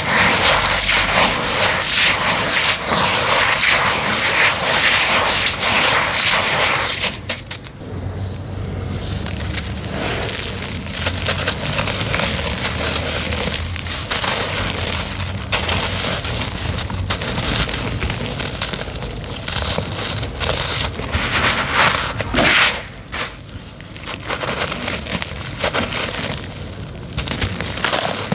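Homemade cement crumbling and being crunched: a dense gritty crackle of many small cracks, loudest for the first seven seconds, with short lulls about eight seconds in and twice near the end.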